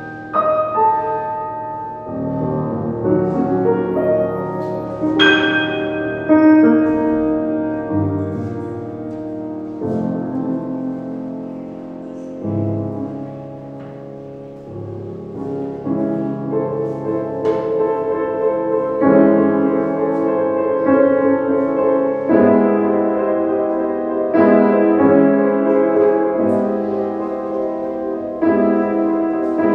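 Grand piano played solo: chords and a melody struck and left to ring, softening to a quieter passage just before the middle and then building louder again through the second half.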